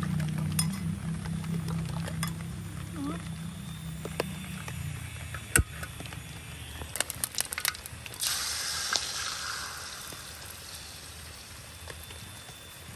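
A fork clinks against a ceramic bowl as eggs are beaten. About eight seconds in, beaten egg hits hot oil in a wok and sizzles, fading gradually.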